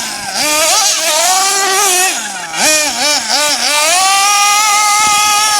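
GS Storm Evolution 1/8-scale nitro RC buggy's small glow engine running at high revs, its pitch rising and falling quickly with the throttle. It dips about halfway through, blips several times in quick succession, then holds a steady high pitch near the end.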